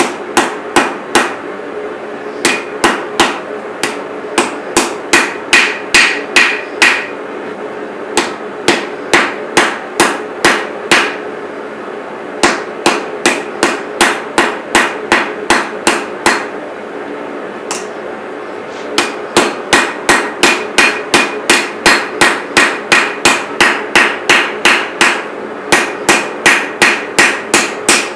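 Hand hammer forging a steel chef's knife blade on an anvil: blows at about two a second, in runs of several seconds with short pauses between. Some blows ring with a bright metallic note.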